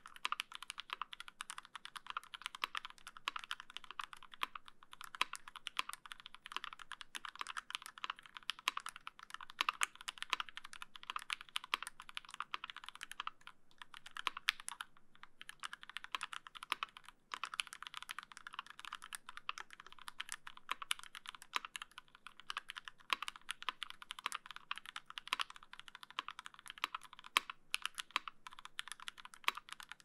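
Steady, fast typing on a GSKT-00 custom mechanical keyboard fitted with lubed Fei switches in an aluminium plate, GMK keycaps, and no sound dampening. A dense, even stream of keystrokes, with a few short breaks past the middle.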